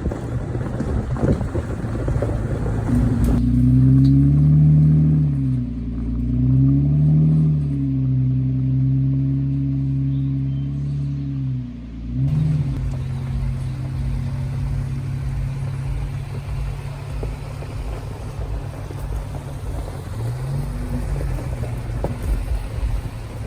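Jeep engine running while driving, its pitch dropping and rising several times in the first half, then holding steady.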